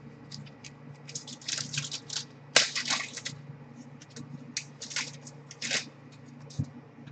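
2019 Gypsy Queen baseball cards being flipped through and slid against each other by hand: a run of short, irregular swishes and snaps, the loudest about two and a half seconds in, over a faint steady hum.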